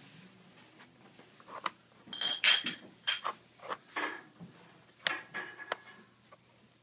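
Hard objects clattering and clinking together: a quick run of sharp clinks, some with a brief ringing tone, loudest around the middle and stopping about a second before the end.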